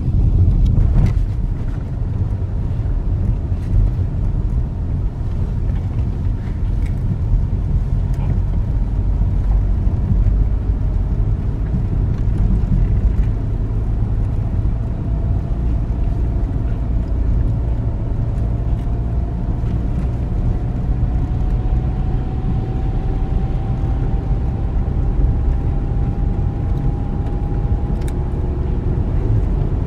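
A car driving through a rock tunnel, heard from inside the cabin: a steady low rumble of engine and tyres on the road. Over the second half a faint tone slowly rises in pitch.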